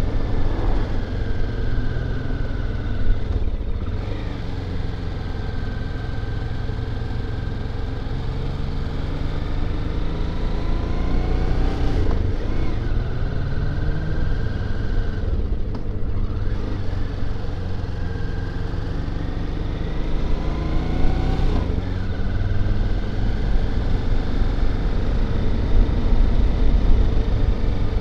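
Motorcycle engine heard from the rider's seat while under way, its note rising and falling with throttle, with brief breaks several times as gears are changed.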